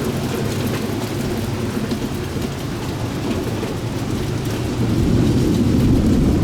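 Heavy rain falling during a thunderstorm, with a steady low rumble underneath that grows louder about five seconds in.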